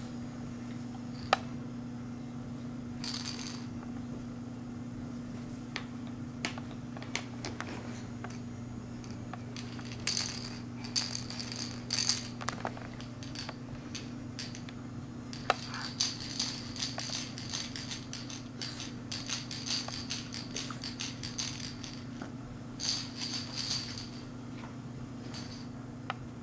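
A small bell jingling and rattling in irregular bursts, busiest about halfway through and over most of the second half, with scattered light clicks, over a steady low hum.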